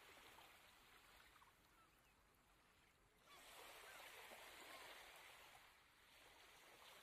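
Faint shoreline ambience: a soft wash of shallow water at the beach edge with a few brief, distant bird calls. The wash grows a little louder about three seconds in.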